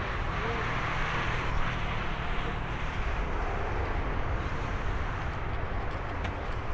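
Boeing 747-8's four GEnx turbofans at takeoff power as the jet begins its takeoff roll: a steady jet noise with a deep rumble underneath, a little brighter in the first couple of seconds.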